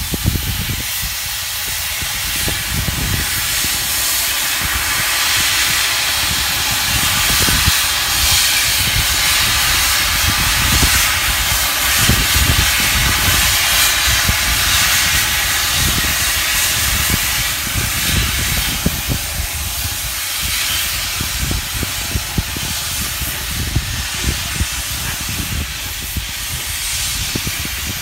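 Rebuilt LMS Royal Scot class 4-6-0 steam locomotive 46115 'Scots Guardsman' blowing steam from its open cylinder drain cocks as it moves its train, a loud steady hiss. The cocks are open to clear condensed water from the cylinders.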